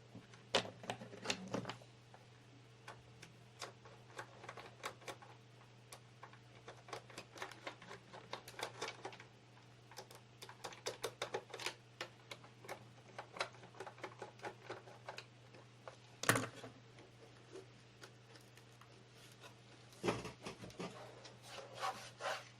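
Irregular clicks, taps and knocks of a screwdriver working against the plastic case of an Asus VH192D LCD monitor as the case is taken apart, with one sharper knock about two thirds of the way through. A faint steady low hum runs underneath.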